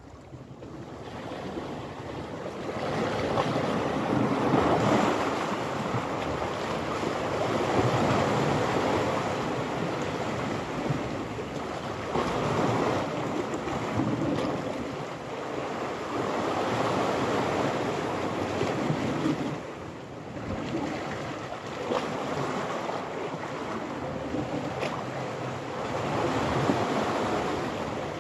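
Sea waves washing against a rocky shore, surging and easing every few seconds, with wind buffeting the microphone.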